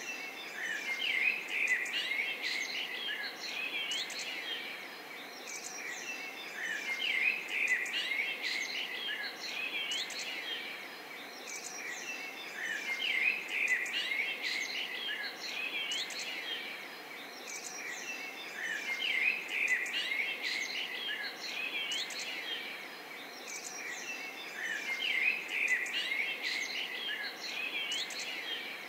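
A chorus of small songbirds chirping and twittering, many short calls overlapping, swelling and easing in a regular cycle about every six seconds.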